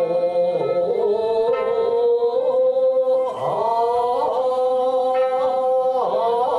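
Ryukyuan classical dance music: a singer holds long, drawn-out notes with slow bending ornaments, over sanshin accompaniment.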